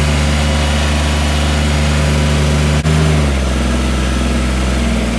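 Kubota compact tractor's diesel engine idling steadily. About three seconds in there is a brief click, and the engine note drops slightly.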